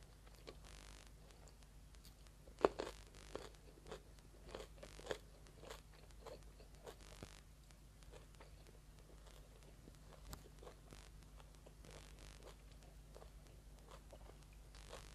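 Faint mouth sounds of chewing a mouthful of rice and braised pork belly: a run of soft wet clicks about every half second, loudest about three seconds in, growing sparser later.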